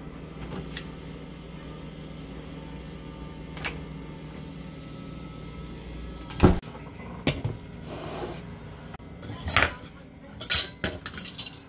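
A refrigerator door shut with a loud thump about six and a half seconds in, followed by a few lighter knocks. Near the end, a metal knife and fork clatter against a wooden cutting board.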